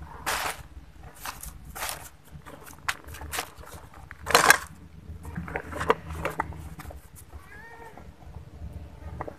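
Stray cats meowing, one drawn-out call near the end, amid many short rustling scuffs on dry rubbish. The loudest is a noisy burst about four and a half seconds in, as a cat passes the microphone.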